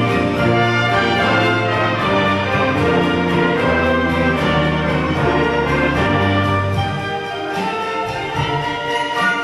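Church orchestra playing a Christmas concert piece in full ensemble, held chords over bass notes that change every second or two.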